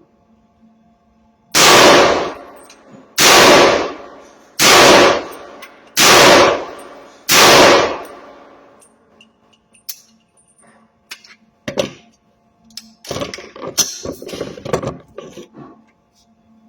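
Five shots from a 16-inch AR-15 rifle chambered in .300 Blackout, firing 147-grain FMJ rounds, evenly spaced about a second and a half apart, each followed by a ringing echo. Scattered metallic clattering and knocks follow near the end.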